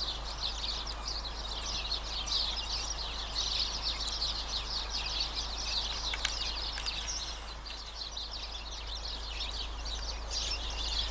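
Many small birds chirping and twittering together in a continuous chorus, over a low steady hum.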